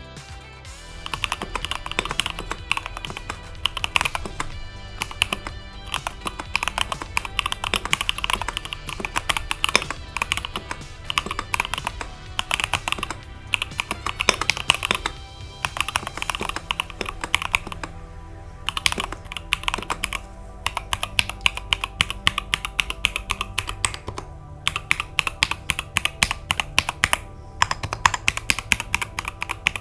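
Fast typing on an Epomaker Shadow X gasket-mounted mechanical keyboard with Gateron Pro Yellow linear switches: a dense run of keystroke clacks that starts about a second in, with a couple of brief pauses. Background music plays underneath.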